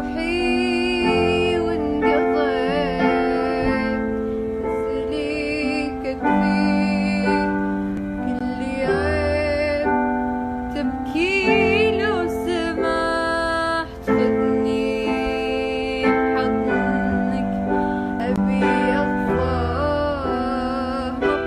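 A girl singing an Arabic song in phrases of long held, wavering notes, over a keyboard accompaniment of sustained chords with a low bass pulse.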